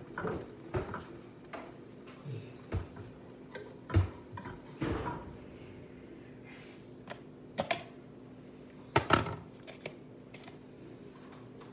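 Kitchen clatter of a frying pan on the stove being worked with a utensil: scattered knocks and clicks, the loudest about four seconds in and a close pair about nine seconds in, over a steady low hum.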